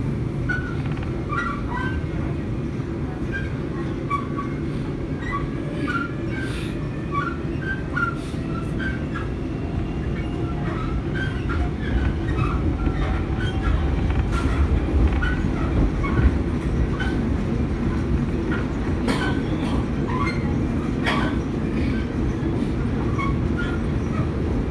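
Seoul Metro 4000-series electric subway train under way: a steady rumble of wheels on rail with scattered clicks and knocks from the track and a faint whine from the traction equipment.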